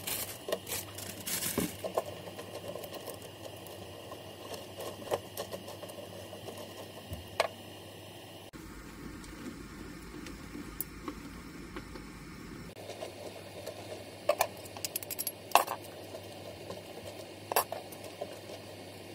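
Wooden chopsticks clicking and tapping against a stainless steel pot while stirring ramyeon noodles in simmering broth, over a steady hiss. The clicks come at irregular intervals, with a cluster of sharper ones near the end.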